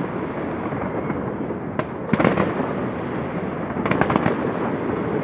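Fireworks going off in a steady din, with bursts of rapid crackling pops about two seconds in and again about four seconds in.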